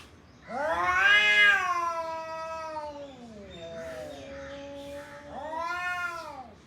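Cat meowing in long drawn-out calls: a loud one that rises and then slowly falls over about two and a half seconds, followed by lower calls and a shorter rising-and-falling call near the end.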